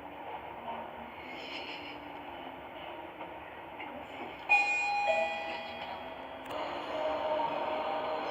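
Sigma elevator chime: a sudden electronic two-note ding, the second note lower, about halfway through, over steady background noise of the lift and hall. Softer sustained tones follow near the end.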